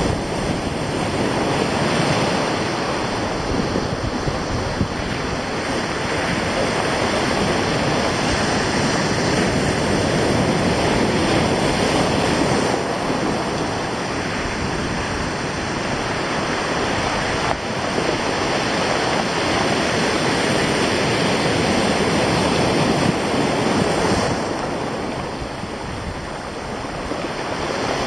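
Sea surf breaking and washing over rocks and a pebbly beach in a steady rush, with wind on the microphone. It eases briefly near the end.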